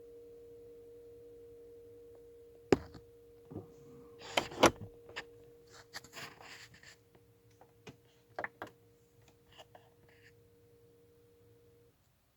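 Steady beep from a Volkswagen, one continuous tone sounding two notes at once, the problem noise the owner is trying to trace. A few sharp clicks and knocks sound over it, the loudest about a third of the way in, and the tone cuts off just before the end.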